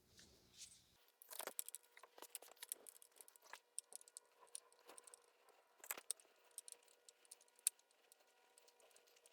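Faint, irregular metallic clicks and clinks of a spark plug socket and extension being handled as spark plugs are threaded by hand into the engine's cylinder head. The clicking starts about a second in.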